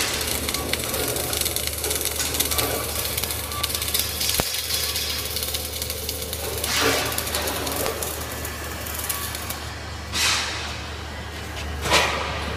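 Flux-cored arc welding: the arc crackles and sputters steadily over a low electrical hum, then stops near the end. Two short hisses follow.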